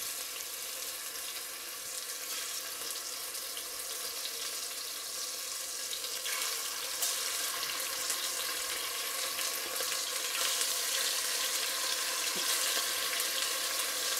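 Marinated chicken pieces sizzling in hot olive oil in a pot as they are dropped in by hand. The sizzle gets louder about six seconds in and again a few seconds later as more pieces go in.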